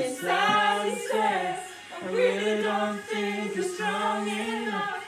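Vocal music: singing in long held notes that break and start again every second or so.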